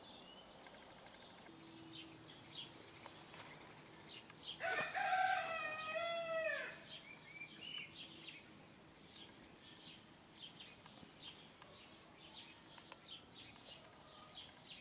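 A rooster crows once, a single drawn-out call of about two and a half seconds that drops in pitch at the end, with small birds chirping.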